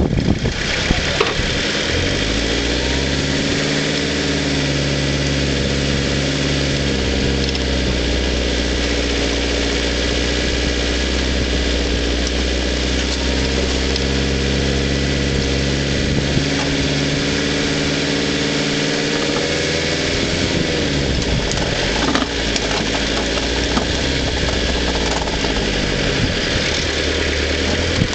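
Vauxhall Frontera 4x4's engine running while the vehicle drives over a rough off-road track. The pitch rises and falls a few times, and there are a few faint knocks.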